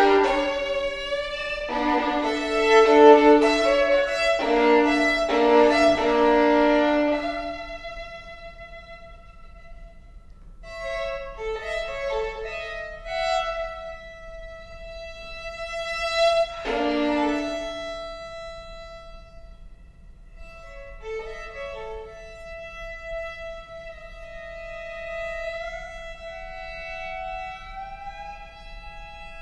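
Unaccompanied solo violin: loud multi-note chords struck several times in the opening seconds, then softer, thinner lines, another chord a little past halfway, and held notes that slowly slide upward near the end.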